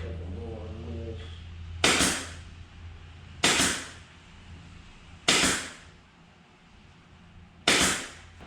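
Pin nailer firing four separate shots a second or two apart, each a sharp snap with a short fading tail, driving extra pin nails into pallet-wood shelf joints that had not set well.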